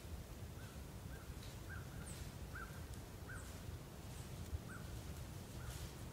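Wild animal calls: a short call repeated roughly once a second, with a few faint high chirps above it and a steady low rumble underneath.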